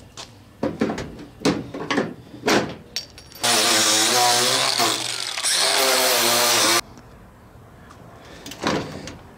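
A flat screwdriver prying and scraping at the steel of a 1963 Ford Thunderbird door, a series of sharp knocks about twice a second. About three and a half seconds in, a Milwaukee angle grinder starts grinding the door metal, its pitch wavering under load, and cuts off suddenly a few seconds later.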